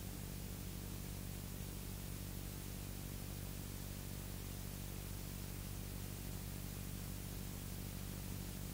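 Steady hiss with a low electrical hum underneath, unchanging throughout: the bare noise floor of the recording, with no other sound.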